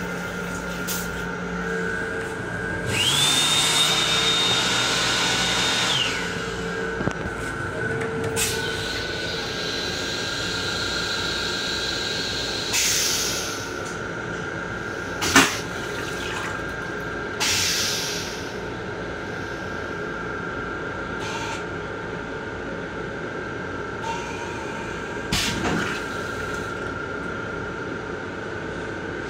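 Long Island Rail Road M7 railcar restroom: the sink faucet running and the toilet flushing, heard as several hissing rushes of water and air over a steady high tone. The loudest rush, about three seconds in, carries a high whine, and there is a sharp click about fifteen seconds in.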